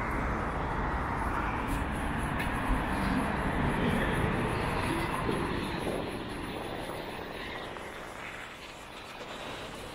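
Road traffic: a passing motor vehicle's rumble and tyre noise, steady at first and then fading away over the last few seconds.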